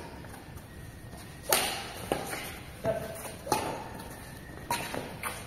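Badminton rally: about six sharp smacks of rackets striking the shuttlecock, roughly one every half second to second, the loudest about one and a half seconds in, with light footsteps on the court.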